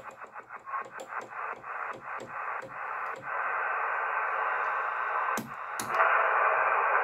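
Cobra 148GTL CB radio hissing with 11-metre band static while its channel selector is stepped through about a dozen channels, one sharp click per step, the clicks spacing out and stopping about three seconds in. Two more clicks come near the end, after which the static grows louder.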